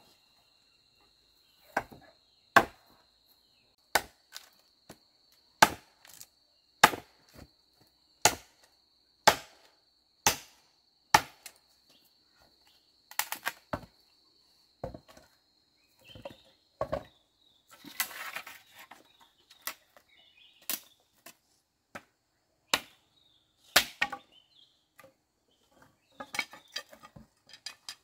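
Chopping: a blade striking wood in sharp, separate blows, roughly one a second and unevenly spaced, with a crackling, splintering stretch about 18 seconds in and quicker, lighter strokes near the end. A steady high-pitched tone runs beneath the first half and stops about 17 seconds in.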